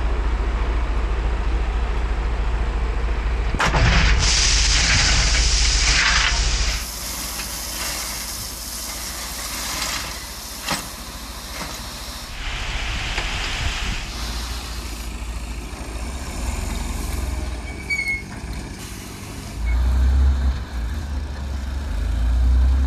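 Diesel tipper truck's engine running with a deep, steady drone. About four seconds in comes a sharp click and a loud hiss of air lasting a few seconds. The load of dark gravel then slides off the raised tipper bed, and the engine swells near the end as the truck pulls away.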